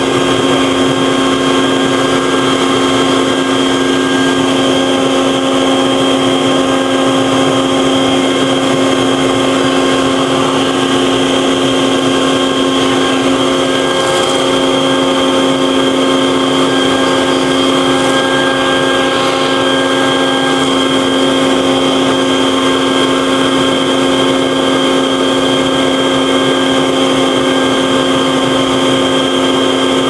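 Wet/dry shop vacuum run as a blower, its motor whining steadily over a rush of air as it blows dust and leaves out of a refrigerator's condenser coils.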